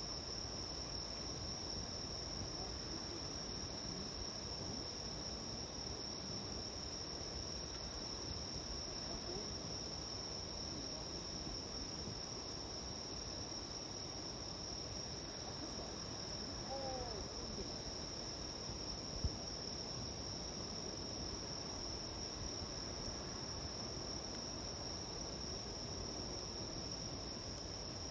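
Crickets singing a steady, continuous high trill over the soft crackling of a small wood campfire, with one sharp pop about two-thirds of the way through.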